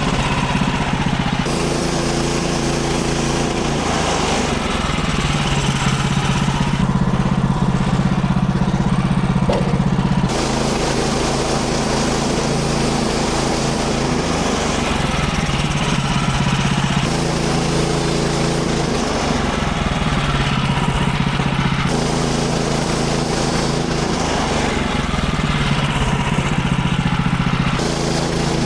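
Small gasoline engine of a Woodland Mills HM130 Max portable bandsaw sawmill running steadily while sawing white oak into boards. Its pitch steps up and down every few seconds.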